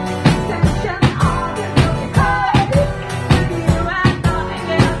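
Live rock band playing, with a steady drum beat and guitar, and a voice wavering over it.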